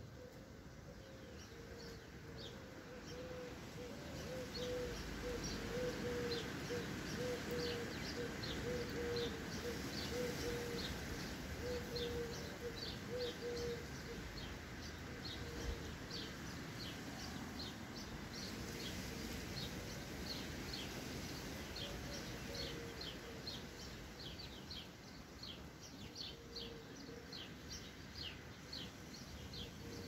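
Sparrows chirping over and over, many short high chirps in quick succession, over steady background noise. A low wavering tone runs underneath for about the first half.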